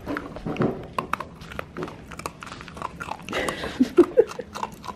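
Dog chewing and licking a crumbly baked dog-treat donut, many quick crunches and mouth clicks.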